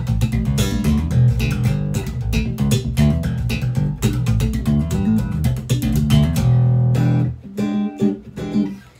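Fodera Viceroy 7-string electric bass played with both Seymour Duncan dual-coil pickups on and coil-tapped: a fast run of plucked notes, a note held for about a second near the end, then a few more notes that die away.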